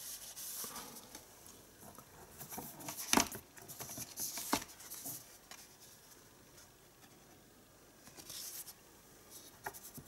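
Glossy cardboard art cards being handled and shuffled by hand: faint rustling and sliding of card against card, with a couple of sharper clicks around the middle.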